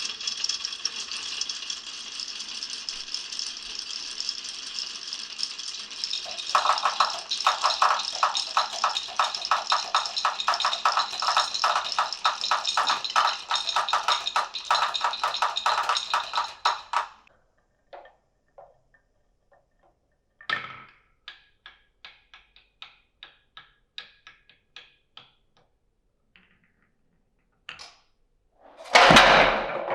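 Marbles rolling and rattling along a marble run, joined about six seconds in by a fast, even clicking, until the run stops abruptly at about seventeen seconds. After a short silence comes a sharp knock followed by a string of separate lighter clicks, a single click, then a loud burst of rattling near the end.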